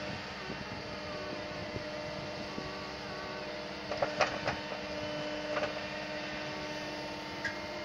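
Wheeled walking (spider) excavator running, its engine and hydraulics giving a steady hum. A few sharp clicks come about four seconds in, and another follows shortly after.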